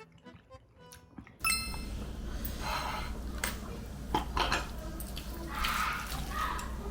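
Faint tail of background music, then, about a second and a half in, fried rice sizzling in a pan while a spoon or spatula stirs and scrapes it with repeated clinks.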